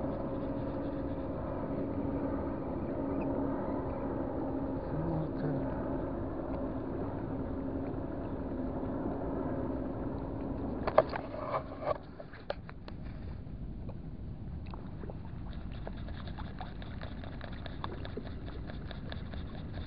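A boat engine running with a steady hum, which fades out about twelve seconds in. Just before it goes, a few sharp clicks and knocks; after that, a fast, faint ticking from a small spinning reel being wound in.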